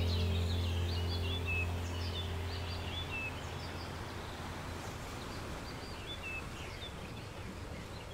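Small birds chirping and twittering over a steady outdoor noise bed. A low steady hum underneath fades out over the first few seconds.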